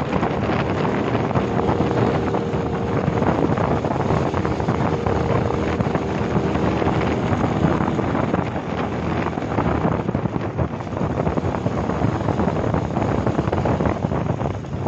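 Wind rushing over the microphone of a moving two-wheeler, with the engine's steady hum underneath, most distinct in the first half.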